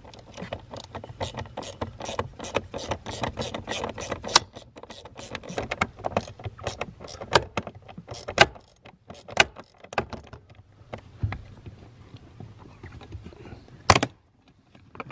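Ratchet with a 6 mm socket clicking in quick, even strokes, about four to five a second, as bolts are backed out; the clicks thin out later, with one sharp click near the end.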